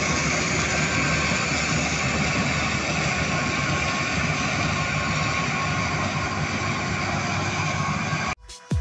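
Claas Tucano 440 combine harvester running steadily while harvesting maize: a constant drone of engine and threshing machinery. The sound cuts off abruptly near the end.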